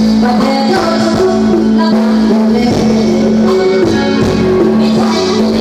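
Live Thai band music played loud through the stage PA, a steady drone note held under a moving melody.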